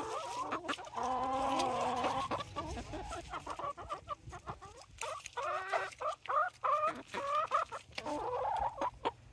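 A flock of hens clucking in a string of short, overlapping calls, some drawn out, as they crowd in for treats; sharp clicks are mixed in.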